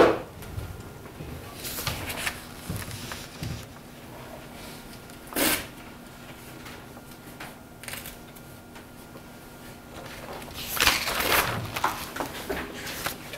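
Paper pages of a book rustling as they are handled and turned: a few short rustles, then a longer rustle about eleven seconds in, over a faint steady hum. A sharp knock comes right at the start.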